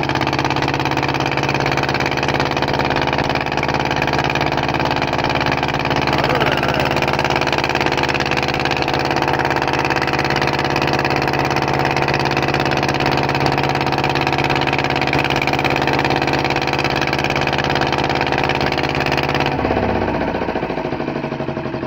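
Outboard motor of a small fishing boat running steadily at a constant speed. Near the end the steady engine sound changes abruptly.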